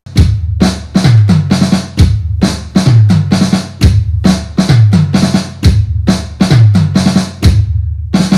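Loud outro music built on a steady drum-kit beat, with heavy bass drum and snare hits and a deep bass note sliding down in pitch on each main beat.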